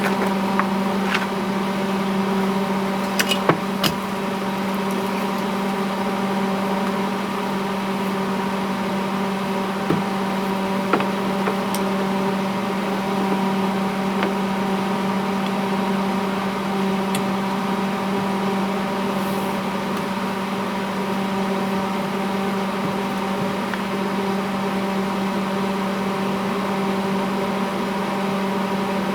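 A steady, even-pitched machine hum, with a few faint ticks in the first several seconds.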